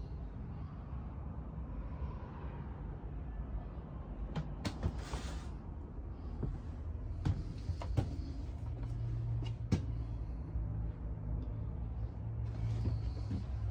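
Scattered clicks and knocks of camper doors and cabinet latches being handled, over a low background rumble. A steady low hum comes in about eight and a half seconds in.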